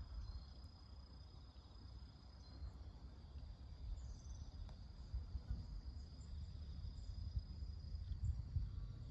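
Insects droning in one steady high-pitched buzz, with a few faint short chirps and an uneven low rumble underneath.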